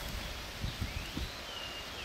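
Faint outdoor ambience: a low rumble with rustling, and one faint drawn-out whistle that rises, holds and falls over the second half.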